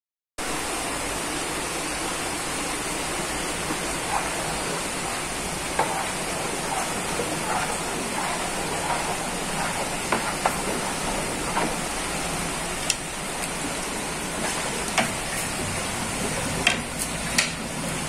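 Rain falling steadily: an even hiss with scattered sharp drip ticks, which come more often in the last few seconds.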